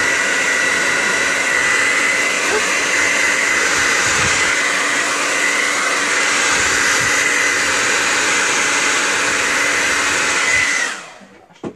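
Handheld hair dryer blowing steadily, a high whine over its rush of air, drying a fresh coat of chalk paint; it is switched off near the end and dies away quickly.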